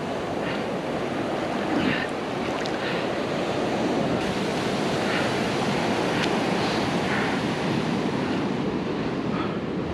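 Ocean surf washing in over the sand at the water's edge, a steady rush of breaking waves, with wind on the microphone.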